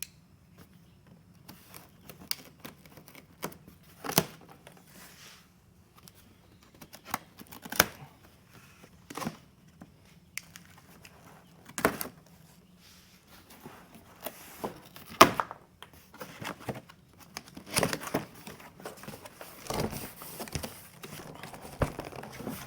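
Packing tape being cut and torn off cardboard boxes and the flaps pulled open, with irregular sharp rips, scrapes and thunks of handled cardboard.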